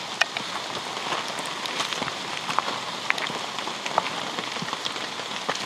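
Steady rain falling, an even hiss with many scattered sharp drop hits.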